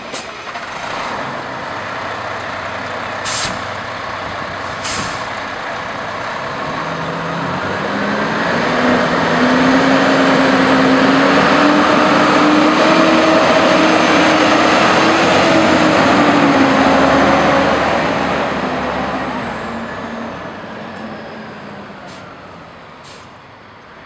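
Fire department aerial ladder truck pulling away and driving past: two short sharp hisses of air brakes releasing a few seconds in, then the diesel engine pulling hard, its note climbing and growing loud as the truck goes by, then dropping and fading as it drives off.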